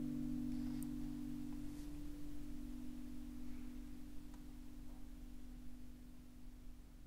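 The last held low chord of the background music, slowly fading away.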